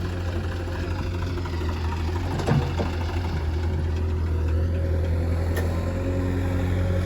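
Heavy diesel engine of earth-moving machinery running steadily at a low, even speed, with a brief knock about two and a half seconds in.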